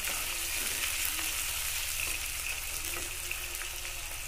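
Chicken skin and sliced onions frying in hot mustard oil in a karai, sizzling steadily while being stirred with a wooden spatula.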